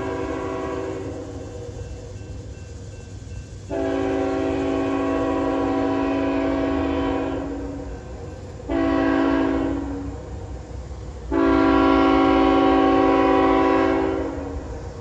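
Diesel locomotive's multi-chime air horn sounding several notes at once: the end of one blast, then a long blast, a short one and another long one, the pattern of a grade-crossing signal. A steady low rumble of the train runs underneath.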